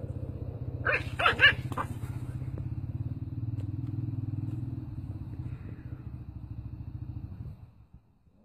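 A dog growling in one long, low, steady growl that stops near the end, with a quick burst of three or four loud barks about a second in.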